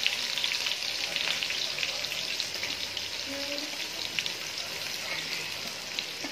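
Freshly added sliced onions and green chillies sizzling in hot oil in an aluminium pot: a steady frying hiss with small crackles and pops all through.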